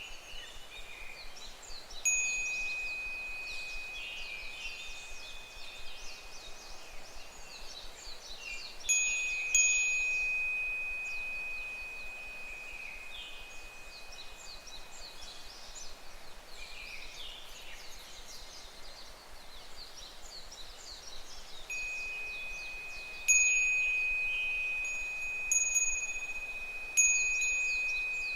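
Japanese furin wind chime ringing in a few clusters of strikes, each a clear high tone that slowly fades. Under it runs a steady chorus of higurashi (evening cicadas) calling in quick repeated notes.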